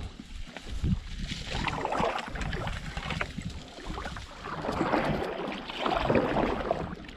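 Canoe paddles dipping and pulling through river water, with several swells of splashing and swishing over a low wind rumble on the microphone.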